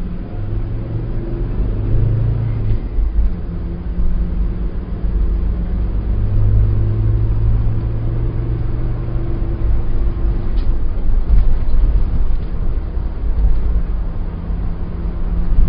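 Car interior while driving: a steady low road and engine rumble, with the engine note shifting in pitch every few seconds as the car speeds up and eases off.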